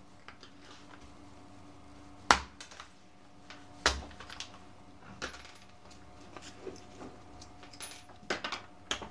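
Scattered sharp clicks and knocks of small hard parts being handled and set down: the opened plastic housings and parts of two cordless drill/drivers. The loudest knocks come about two and four seconds in, with lighter clicks later.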